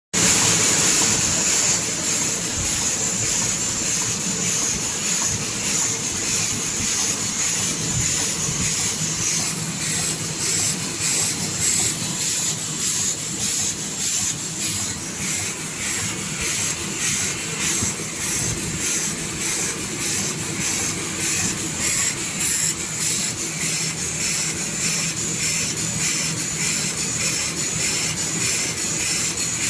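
Automatic packing machine for plastic cutlery and napkin sets running steadily: a continuous hiss with a fast, even rhythm of short mechanical strokes.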